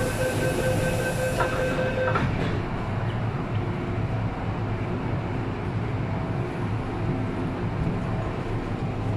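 Inside an MTR M-Train car, the door-closing warning tone sounds steadily for the first two seconds while the doors slide shut, ending with a knock as they close. Then a steady low rumble of the train car follows, with a faint hum joining about six seconds in.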